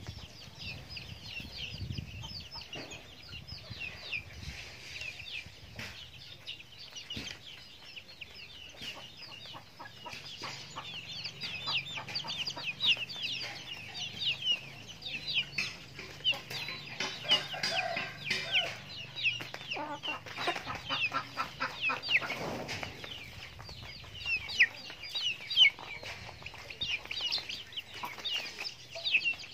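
Chickens, young birds among them, peeping and clucking as they peck at feed: a steady stream of short, high, falling chirps that grows busier and louder about halfway through.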